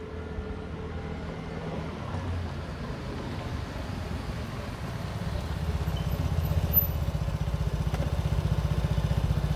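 Vespa Sprint scooter's single-cylinder four-stroke engine approaching and getting louder about halfway through, then idling up close with a fast, even putter.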